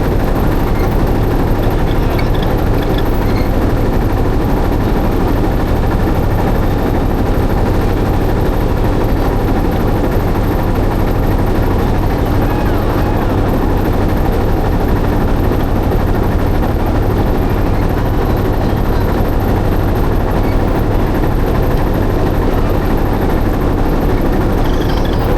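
Motorboat engine running steadily, a loud, even drone that does not change.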